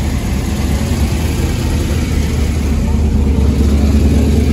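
A truck engine idling with a steady low rumble that grows slightly louder about three seconds in.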